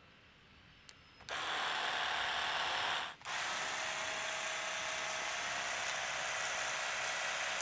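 SunJoe cordless pressure washer running: its electric pump motor gives a steady whine under the hiss of the water jet hitting the pavement. It starts about a second in after a near-silent moment and cuts out briefly once, about three seconds in.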